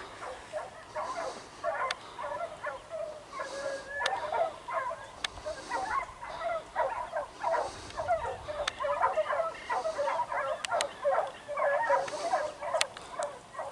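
A pack of hunting dogs baying and yelping in chorus as they run the hillside, many short overlapping calls with no pause.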